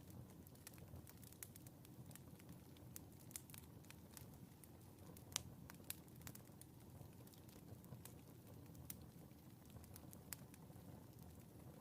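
Wood fire in a fireplace crackling faintly: irregular sharp pops and ticks over a low steady rumble, the loudest pop about five seconds in.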